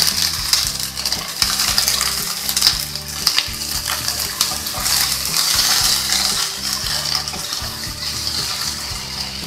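Green peas and chopped onion sizzling in hot oil in a kadai, stirred with a wooden spatula that clicks and scrapes against the pan. The sizzle flares as the peas go in and stays loud throughout.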